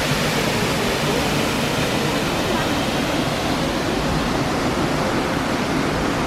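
Multnomah Falls, a tall double-tiered waterfall, rushing: a loud, steady, even wash of falling water.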